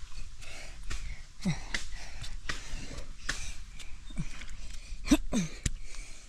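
Several short animal calls, each sliding down in pitch, about a second and a half in, again near four seconds and twice a little after five seconds, over scattered clicks and rustling.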